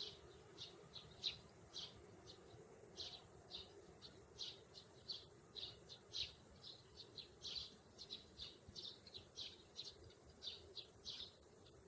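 Sparrows chirping: short, high chirps about three a second, irregularly spaced, over a faint steady low hum.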